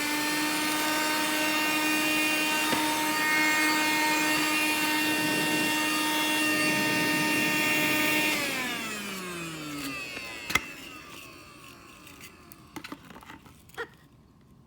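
Cordless handheld vacuum cleaner motor running at a steady high whine, then switched off about eight seconds in and winding down in falling pitch over a couple of seconds. A sharp click and light handling knocks follow.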